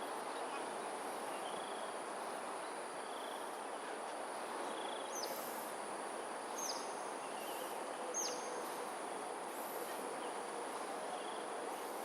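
Evening chorus of insects: a steady high buzz with short chirps repeating at an even pace, over a steady rushing background. About halfway through come three short, sharp calls that slide downward in pitch, a second and a half apart.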